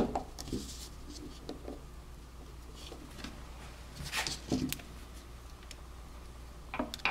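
Light metal clicks and taps from handling a vintage Craftsman 3/8-inch drive ratchet during reassembly. A sharp click comes right at the start, then scattered soft taps, a short cluster of clicks about four seconds in, and another just before the end.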